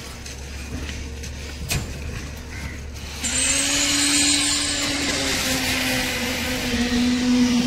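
A machine motor starts up about three seconds in and runs steadily, a hum with a hiss, over a low rumble.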